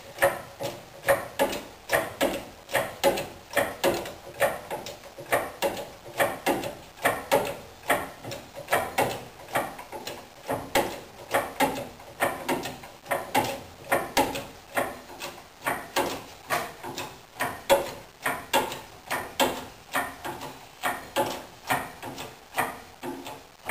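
Harbor Freight model 1647 hand-operated pickup truck crane being worked by its handle to lift a hanging log, a clank or creak at each stroke, about two a second, steady throughout.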